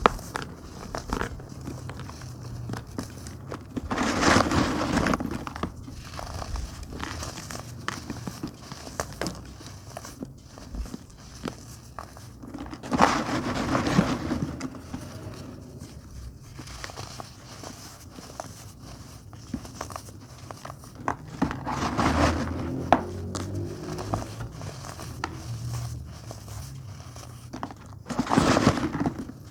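Blocks of baking soda crumble being squeezed and crushed by hand, with a fine crackling of crumbling powder throughout. Four louder crunches come as chunks are broken, roughly every six to nine seconds.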